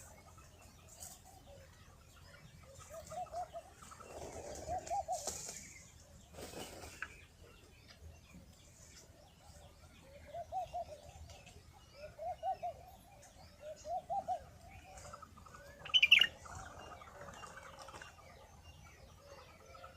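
Pigeons cooing in short rolling phrases repeated every few seconds, with wing flaps around the middle and a louder, higher-pitched bird call about three-quarters of the way through.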